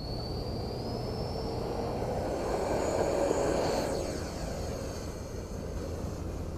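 A 70 mm electric ducted fan in a scratch-built RC Gripen model jet whining in flight, its thin whine rising in pitch over the first couple of seconds over a rush of air. It grows loudest about three seconds in as it passes, then eases off.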